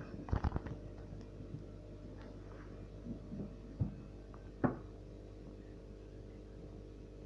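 Steady low electrical hum of aquarium equipment, with a handful of short knocks and taps, the sharpest about four and a half seconds in.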